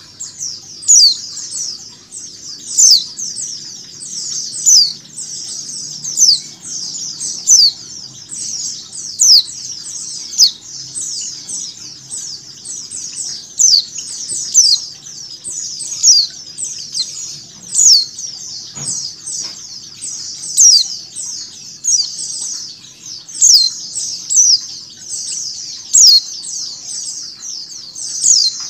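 A flock of white-eyes (pleci) chirping nonstop in short, high, thin calls that sweep downward. A louder chirp stands out about every one to two seconds. This is a female white-eye's 'ngecal' call laid over a flock recording, a training track meant to get caged white-eyes singing.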